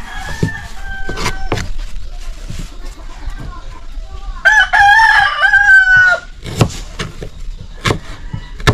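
A rooster crowing once, a long call of nearly two seconds about halfway through and the loudest sound here. Around it, the short knocks of a knife chopping onion and chili peppers on a wooden cutting board.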